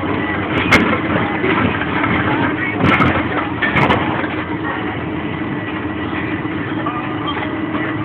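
Tractor engine running steadily under load while pulling a reversible mouldboard plough, with sharp knocks and cracks a little under a second in, at about three seconds and near four seconds as the plough bodies strike stones in the soil.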